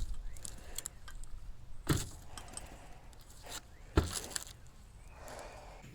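A few sharp knocks and clinks, about two seconds apart, from tools and the metal forge body being handled while refractory cement is spread inside the propane forge.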